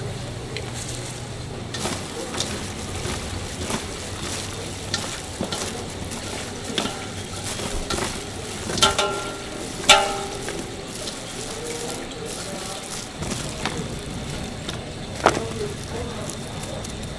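Gloved hands tossing and squeezing seasoned octopus salad in a large stainless steel bowl: wet squelching and plastic-glove rustling with scattered light clicks. Two sharper knocks around the middle set the metal bowl ringing briefly.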